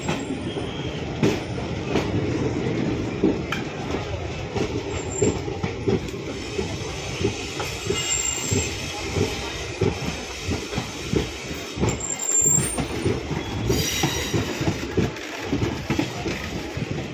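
Indian Railways passenger coaches rolling side by side through a station yard, their wheels clattering steadily over rail joints, heard close from the doorway of a moving coach. Brief high-pitched wheel squeals come a few times.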